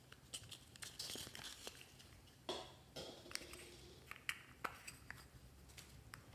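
Quiet handling sounds of hard plastic: a series of sharp clicks and taps and a brief rustle as a plastic makeup compact is picked up and opened, with one louder knock about two and a half seconds in.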